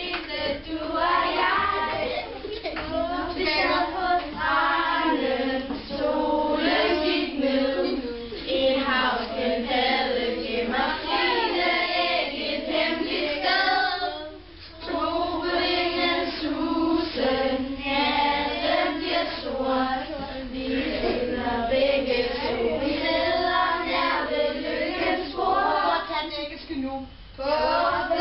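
A group of schoolchildren singing a song together, with a woman's voice singing along. The singing breaks off briefly about halfway through, then goes on.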